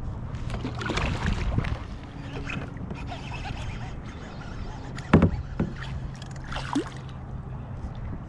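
Water splashing and small knocks around a small boat, over a steady low hum, with one sharp knock about five seconds in.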